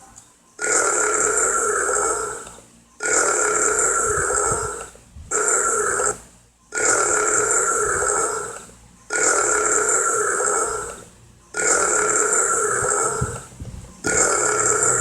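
Long, loud cartoon burps, one after another: seven in all, each about one and a half to two seconds long, with short pauses between.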